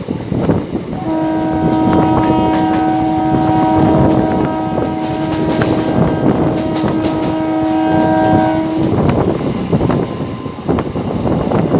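Indian Railways locomotive horn sounding one long continuous blast over the loud running noise of the moving train. The horn stops about nine seconds in, leaving the train's running noise and wind.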